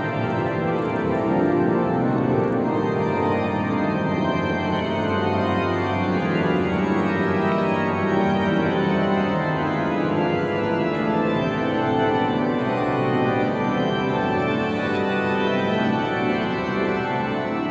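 Pipe organ playing full, sustained chords at a steady volume.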